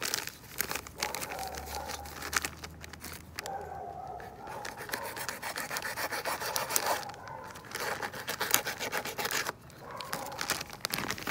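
Hands rubbing and scraping in quick, irregular strokes, working at the black salt beside the bowl.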